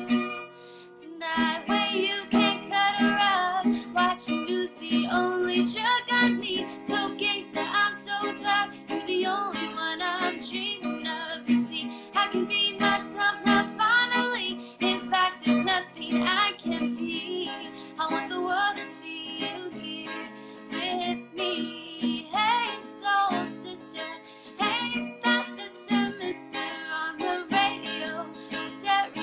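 Music: a song with guitar and a singing voice that carries a wavering melody over a steady accompaniment.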